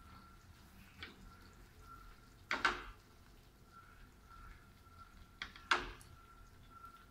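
Metal spoon knocking against a dish while gravy is spooned into a glass bowl: a faint clink about a second in, then louder double clinks near the middle and again a little past two-thirds through.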